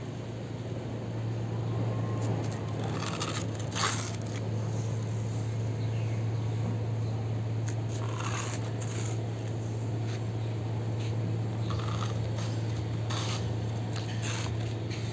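Steady low hum with a few short, scattered scrapes and clicks, typical of toy vehicles and sand being handled.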